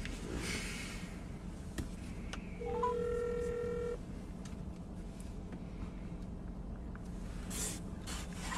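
A phone on speaker placing a call: a few short rising beeps about two and a half seconds in, then one ring tone lasting over a second, over a low steady background hum.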